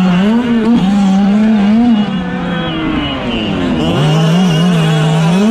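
Fifth-scale HPI 5T RC truck's two-stroke gas engine running hard, heard onboard, its pitch rising and falling as the throttle is blipped. The engine eases off about two seconds in, sinking lower until near four seconds, then picks back up with quick revs.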